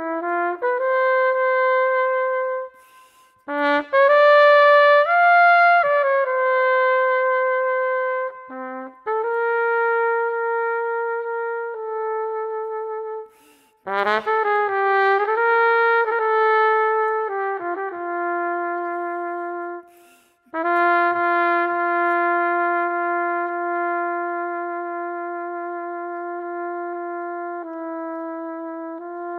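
Solo trumpet, unaccompanied, playing a slow melody in long held notes, with four short breaks for breath between phrases. The last phrase is one long held note that steps to a slightly different pitch near the end.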